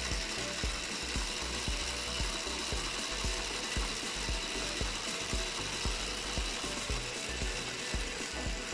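Small 6 V DC motor driving a 3D-printed PLA spur-gear reduction gearbox under load as it winds up a thread lifting a heavy spanner: a steady whir with rapid, continuous clicking from the plastic gear teeth.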